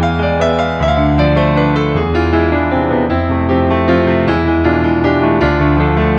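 Background music: a piano or electric-piano track playing steady chords over a sustained bass, the notes changing about once a second.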